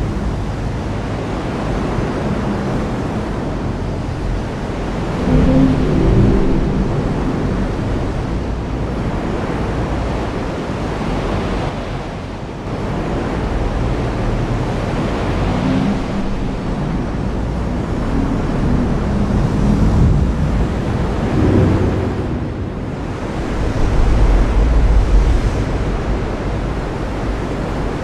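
Heavy rain falling in a steady hiss, with low rumbles of thunder swelling up several times.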